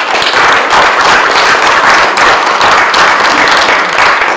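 Audience applauding, many hands clapping loudly and steadily.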